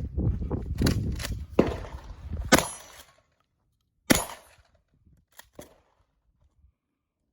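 Shotgun fire during a shooting-match stage: sharp reports about 2.5 s and 4 s in, the second with a short ringing tail. Before them come clicks and handling noise over a low rumble; two small clicks follow, then quiet.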